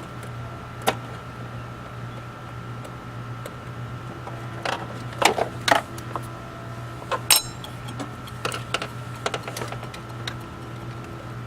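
Hand-tool work on an air intake hose clamp: scattered sharp metallic clicks and clinks, the loudest bunched about five to six seconds in and a ringing clink about seven seconds in, over a steady low hum.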